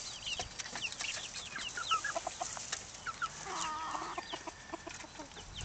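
Silkie chickens clucking and peeping: many short, high, falling peeps throughout, with a longer, lower wavering cluck about three and a half seconds in.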